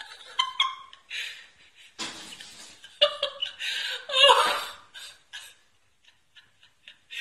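A person laughing in breathy bursts, loudest about four seconds in, then a few faint short taps.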